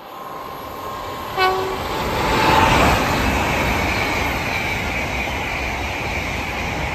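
High-speed passenger train passing close at speed on overhead-wired main line. It gives one short horn toot about a second and a half in, then the rush of wheels on rail builds to a peak and holds steady as the coaches go by.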